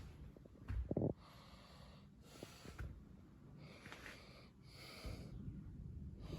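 Breathing close to the microphone: a few breaths heard as short hissing swells, with a low bump about a second in.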